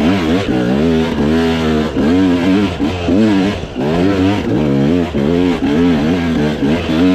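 KTM enduro dirt bike engine revving up and down under load on a rocky climb, its pitch rising and falling about twice a second as the throttle is worked.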